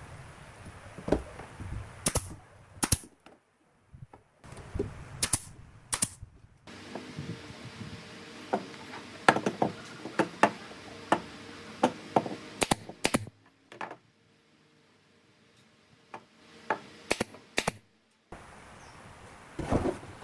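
Pneumatic brad nailer firing nails into the corners of a wooden strip frame: sharp single shots, one at a time, in small groups, about fifteen in all.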